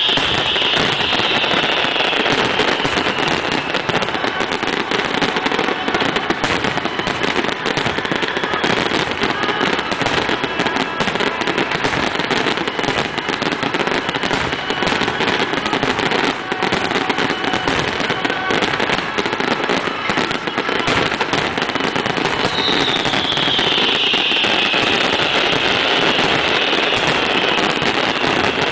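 Fireworks display: a dense, unbroken barrage of bangs and crackling from aerial shells bursting one over another, with a falling whistle near the start and another about 23 seconds in.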